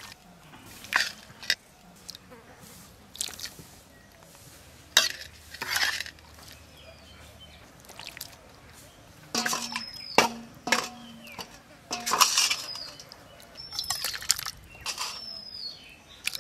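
Steel ladle knocking and clinking against a steel wok and steel plates as a wet vegetable and egg curry is scooped and served onto rice, with soft plops of the curry. The knocks come singly in the first half and in quicker clusters in the second.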